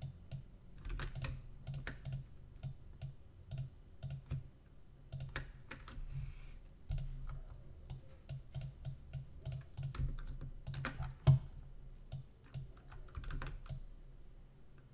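Irregular clicking of a computer mouse and keyboard, a few clicks a second with short pauses, over a low steady hum. One sharper click comes about eleven seconds in.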